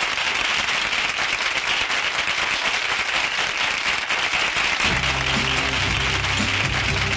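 Studio audience applauding, a dense even clapping at the end of a song. About five seconds in, the orchestra comes back in with low sustained notes under the applause.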